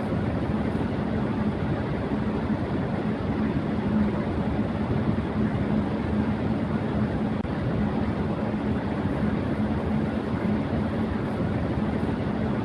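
Electric fan running at high speed: a steady rush of air with a constant low hum underneath.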